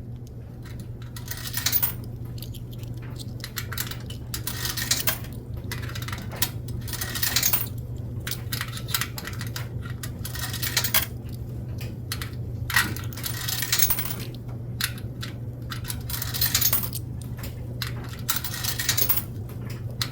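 Coins clinking as they are dropped one at a time into a coin-operated dryer's slot, about a dozen drops spaced a second or two apart, over a steady low machine hum.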